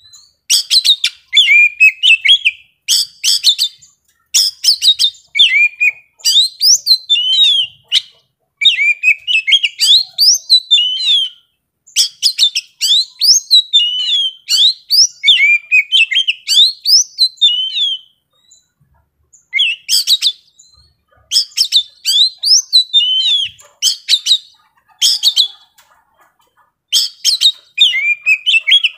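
Young oriental magpie-robin singing loudly and without let-up: quick phrases of gliding whistles and rapid chattering notes, broken by a pause of about two seconds past the middle and a shorter one near the end.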